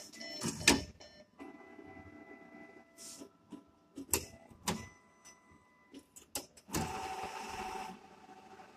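NCR ATM's cash-deposit module processing inserted banknotes, the sign that the notes are being counted and recognised. A loud clack comes about a second in, then scattered clicks over a faint steady hum, and about a second of mechanical whirring near the end.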